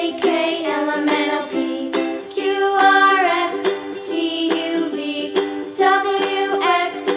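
Background music: a tune with a melody line over regularly plucked notes.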